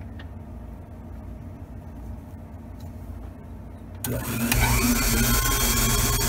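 Van Norman valve refacer switched on about four seconds in: its electric motor spins up with a short rising whine, then runs steadily.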